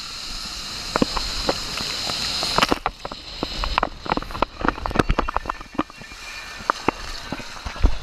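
Water rushing and hissing through an enclosed waterslide tube under a sliding rider. About three seconds in the steady hiss gives way to a run of sharp splashes and sloshing as the rider comes down the open chute into the runout pool.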